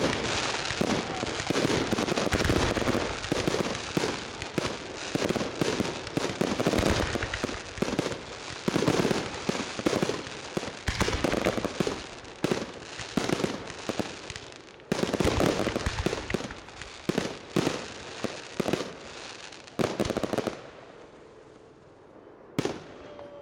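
Fireworks display: a dense, rapid run of aerial shell bursts and crackling bangs that thins out and stops about twenty seconds in, followed by one or two last bangs.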